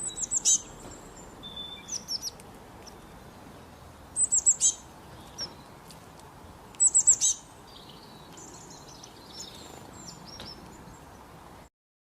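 Small birds chirping: three loud bursts of four or five quick, high, falling notes, about four seconds apart, with softer calls in between over a faint steady hiss. The sound cuts out just before the end.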